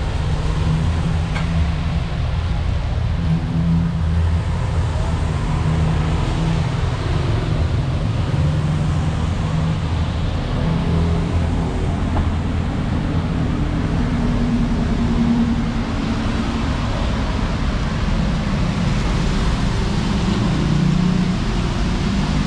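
Steady low rumble of road traffic, with vehicle engines running by.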